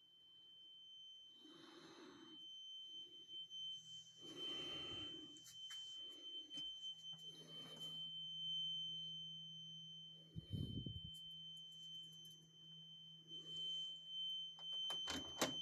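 Carbon monoxide alarm sounding one continuous, unbroken high-pitched tone. A few soft breaths are heard over it.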